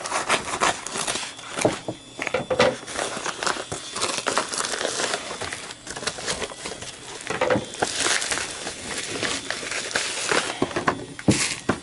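Scissors snipping open a plastic mailer bag, then the plastic crinkling and rustling as it is handled, in a dense run of short crackles.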